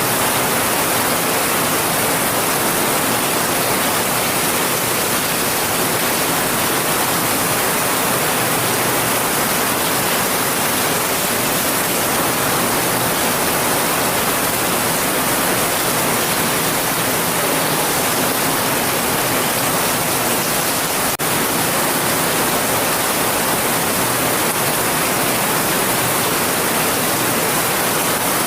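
Heavy rain falling steadily, a dense, even hiss with no let-up, broken only by a momentary dip about three quarters of the way through.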